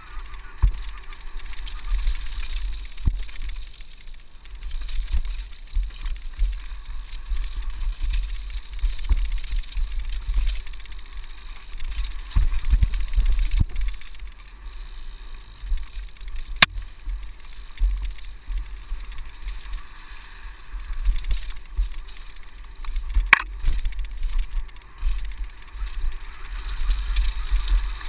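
Downhill mountain bike riding fast over a dirt trail: a constant low rumble of wind on the microphone, with the rattle of the bike and its tyres over bumps and two sharp knocks in the second half.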